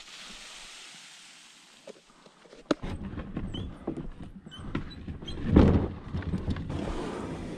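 Feelfree Lure 11.5 fishing kayak dragged along a rocky dirt path on its keel wheel: a low rumble and rattle with scattered knocks and one louder thump a little past the middle. It is preceded by a soft hiss that fades out in the first couple of seconds.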